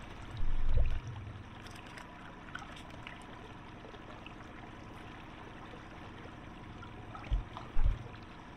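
Water lapping and trickling against the hull of a small boat, with a low thump about half a second in and two short low thumps near the end.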